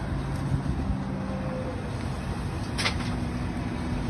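Diesel engine of a Hidromek wheeled excavator running under load as it swings a loaded bucket of soil over to a dump truck, with a brief clatter about three seconds in.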